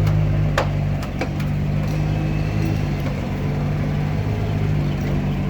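Ferrari Daytona SP3's 6.5-litre V12 running at a steady, unchanging engine speed, with two short clicks about half a second and just over a second in.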